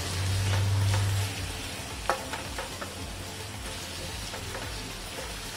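Chopped onions sizzling in hot oil in a non-stick pan as a wooden spatula stirs them, with a few light clicks of the spatula against the pan. A low hum is loudest through the first second or so.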